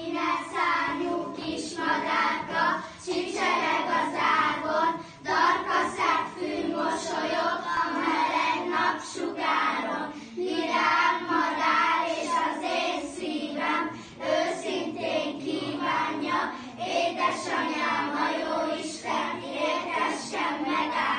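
A group of young schoolchildren singing a song together in unison, in phrases with short breaths between them.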